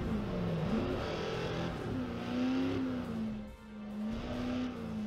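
Race car engine sound effect revving, its pitch dipping and then rising and falling several times as if shifting through the gears.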